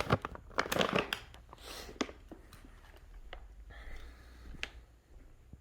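A plastic cat-food bag crinkling and rustling as it is folded and clamped shut, with a few sharp clicks and knocks, busiest in the first two seconds and then fainter handling rustles.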